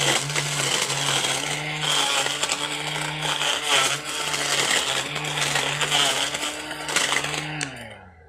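A 21V cordless battery grass cutter runs at a steady pitch while its blade cuts through grass with a dense rasping. Near the end it is switched off, and the motor's whine falls and stops.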